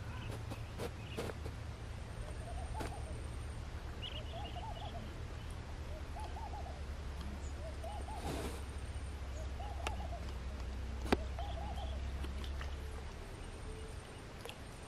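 A bird calling: short groups of low, arched notes repeated about every second and a half, starting a couple of seconds in and stopping near the end, with a few sharp clicks in between.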